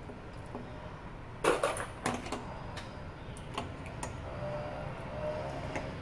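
Metal clips clicking and clattering as they are handled and fitted onto a bicycle reflector strip on a wooden table. The loudest click comes about one and a half seconds in, with a few lighter ones after it.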